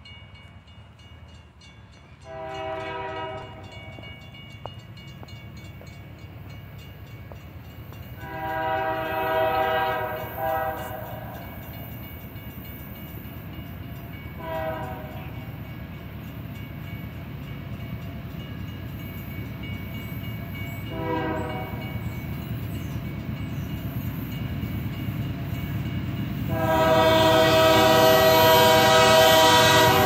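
Union Pacific freight locomotive air horn sounding a multi-note chord in five blasts, several short ones and the last one long and loudest. Underneath, the train's low rumble grows as it approaches the crossing.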